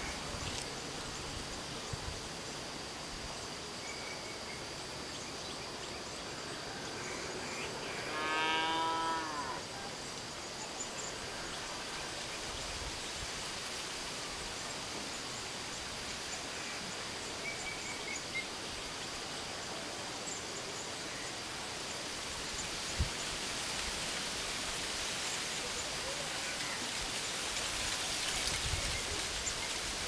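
Steady outdoor background hiss with a constant high-pitched tone; about eight seconds in, one drawn-out animal call, like a distant moo, that falls in pitch at its end, with a few faint bird chirps around it.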